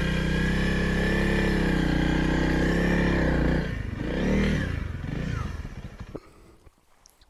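Honda CRF300L's single-cylinder engine running at a steady pitch, then its note wavers and drops about three and a half seconds in and fades away near the end.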